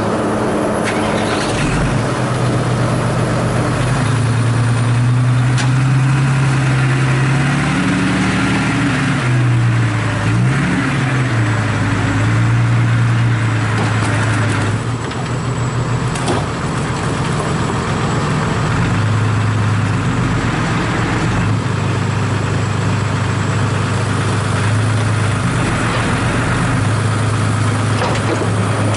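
Dump truck's diesel engine running steadily. About eight seconds in it revs up and back down for a few seconds as the hydraulic tipper raises the bed, then settles to a steady run.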